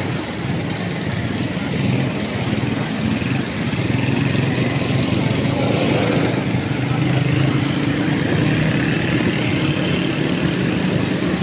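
A vehicle engine running steadily with road and traffic noise around it, as heard while travelling through city streets. Two short high beeps sound about a second in.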